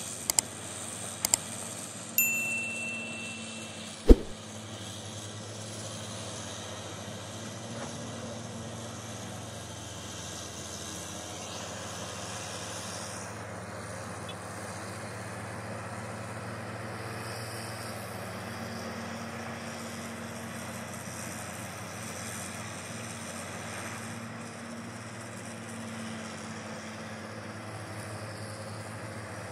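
Komatsu mining excavator's engine running with a steady low drone. A sharp knock about four seconds in.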